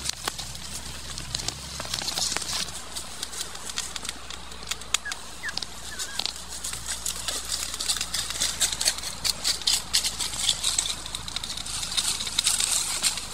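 Dry leaves and twigs rustling and crackling as brush is trampled through and leafy branches are broken and handled, a steady run of short, sharp ticks.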